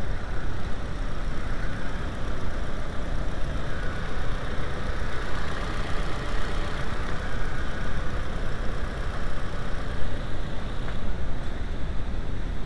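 Car engine idling steadily, a continuous low rumble with hiss over it.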